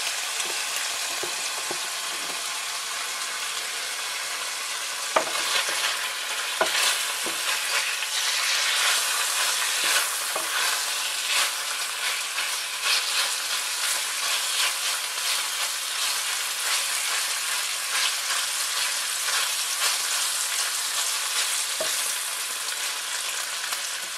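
Bacon strips sizzling steadily in hot garlic olive oil in a frying pan on high heat. From about five seconds in, a wooden spatula stirs the bacon, clacking and scraping against the pan again and again.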